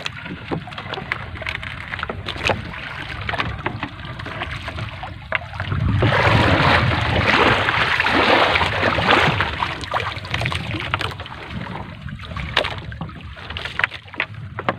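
Three-ply gill net being hauled by hand over the side of a small wooden outrigger boat: scattered knocks and taps against the hull, with water splashing, and a louder rush of water for several seconds in the middle as the wet net comes aboard.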